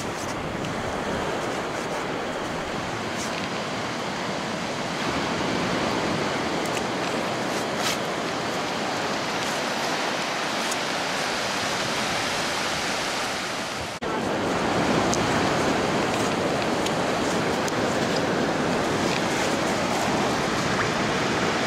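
Surf breaking on a sandy beach, a steady hiss of waves that steps louder about two-thirds of the way through.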